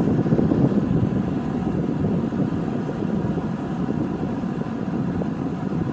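Eskimo 201047 20-inch box fan running on medium speed: a steady rush of air from the blades, easing slightly in loudness as the fan settles down from high.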